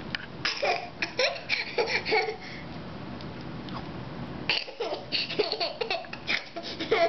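A baby laughing in two runs of short, rapid laugh pulses, with a pause of about two seconds between them.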